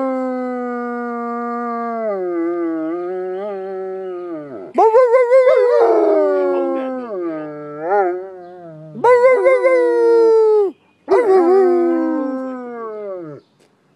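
German Shepherd dog howling in a run of long howls, each sliding down in pitch, set off by a noon siren.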